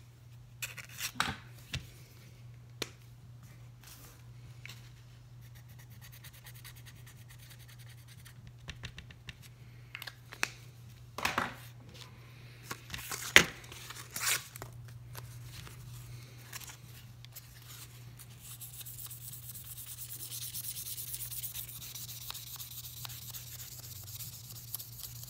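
Etched steel knife blade being handled on a paper-covered bench: scattered clicks and a few sharp knocks, the loudest about halfway through. From about three-quarters of the way in, a steady fine rubbing hiss as the blade is rubbed by hand with fine sandpaper to polish out the etch.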